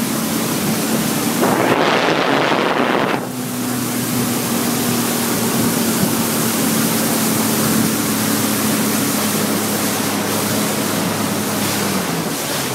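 Motorboat engine running at a steady pitch under heavy wind buffeting on the microphone and rushing water. A strong gust of wind noise sweeps over it about two seconds in, and the engine pitch sags slightly near the end.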